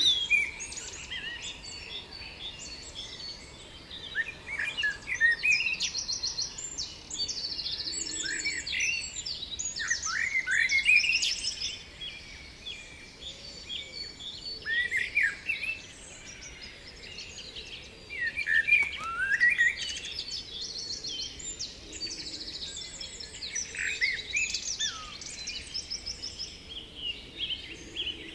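Songbirds singing, with quick chirps, short sweeping whistles and rapid trills overlapping in clusters.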